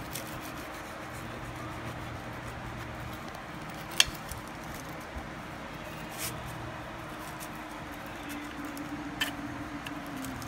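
Kitchen knife cutting into fried pastry pies on a ceramic plate: a few sharp knocks, the loudest about four seconds in and two lighter ones later, over a steady background hiss.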